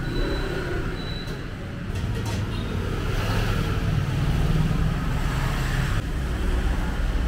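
Street traffic noise: a steady low rumble of passing vehicles, swelling slightly a few seconds in.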